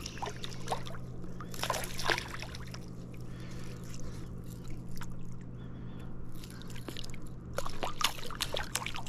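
Water splashing and sloshing as a hooked fish thrashes at the surface beside a canoe, in scattered bursts that come thickest about two seconds in and again near the end. A steady low hum runs underneath.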